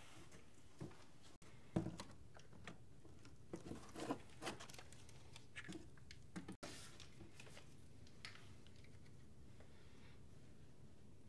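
A cardboard box being opened and handled: flaps rustling and scraping, with scattered light knocks, the loudest about two seconds in. It turns faint after about seven seconds.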